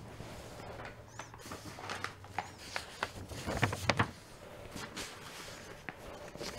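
Quiet room tone with a low hum, broken by scattered faint clicks and rustles, most of them in the middle of the pause.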